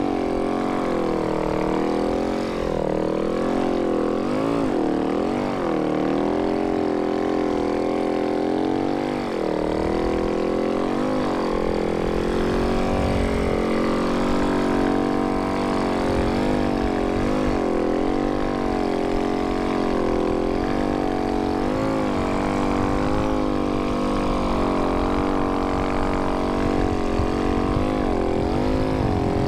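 Snow bike's dirt-bike engine running under load while riding through snow. Its pitch rises and falls every second or two as the throttle is worked, over a low rumble.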